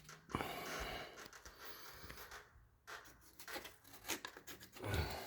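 Rustling and scraping as an HVAC return-air grille is opened and its filter handled and pulled out, with scattered clicks and a soft thump near the end.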